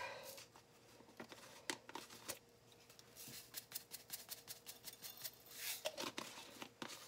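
Dried minced garlic being shaken from a plastic shaker jar onto chopped vegetables in a stainless steel bowl: faint irregular taps and ticks of the jar and falling granules, thickest in the middle few seconds.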